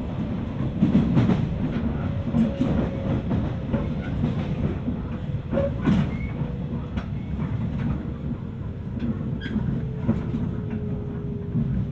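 Onboard running sound of a JR 719 series AC electric multiple unit: steady wheel-and-rail rumble with scattered rail-joint clacks. Over it a faint whine falls slowly in pitch as the train slows. The uploader hears it as a jet-like drone.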